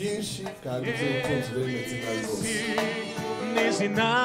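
Gospel worship song: sung voices carrying held, wavering notes, with a stronger voice entering near the end.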